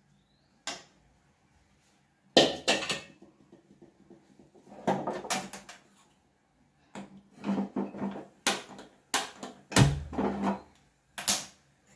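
Scattered short knocks and clinks of kitchen utensils against a steel kadai, separated by quiet gaps, with one dull thump about ten seconds in.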